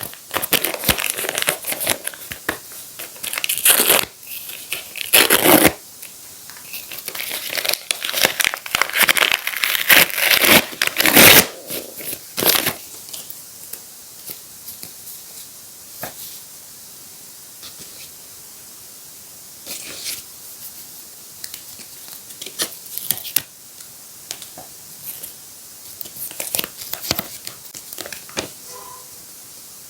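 Paper crinkling and tearing as a handmade paper surprise packet is opened and handled, dense and busy for about the first twelve seconds, then only occasional light rustles and taps.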